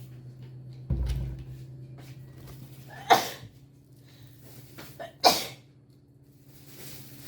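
A person sneezes twice, about two seconds apart, each a sharp, loud burst that dies away quickly: sneezes set off by a nasal swab. A low bump comes about a second in.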